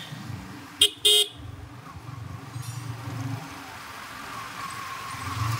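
Motorcycle horn beeping twice about a second in, a short toot then a slightly longer one, over the low running of the motorcycle's engine. Near the end a whine rises slowly in pitch.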